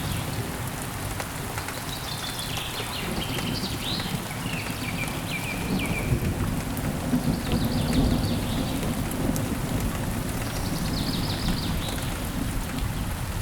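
Steady jungle rain pattering, with birds calling in three bursts of rapid high chirps and a low rumble of thunder about eight seconds in.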